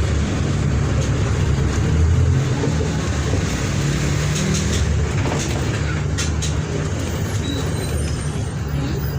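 Diesel engine of a Mercedes-Benz OF-1722M city bus running, its pitch shifting a little as it goes. A few short high squeaks or clicks come between about four and six and a half seconds in.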